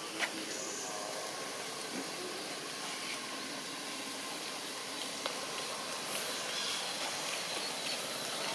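Steady outdoor background noise, an even hiss, with a short sharp click about a quarter second in and a fainter one about five seconds in.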